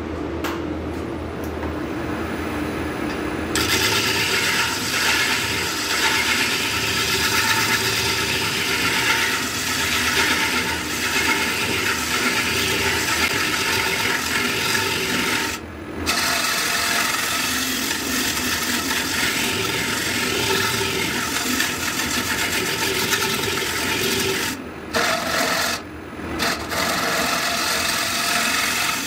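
Wood lathe spinning a bowl blank of Albizia lebbeck (siris) wood while a turning tool hollows its inside: a steady rasping hiss of steel cutting wood over the lathe's hum. The cutting starts a few seconds in and breaks off briefly twice, about halfway through and again near the end, as the tool lifts from the wood.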